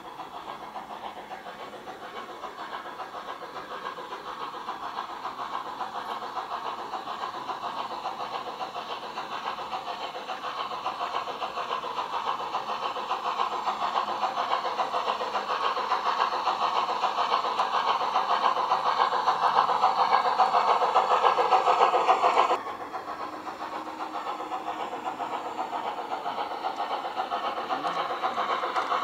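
Large-scale garden railway model of a Harz narrow-gauge steam locomotive running along outdoor track toward the microphone, its motor, gears and wheels on the rails growing steadily louder. The sound drops suddenly about two-thirds through, then builds again as a second model steam train approaches.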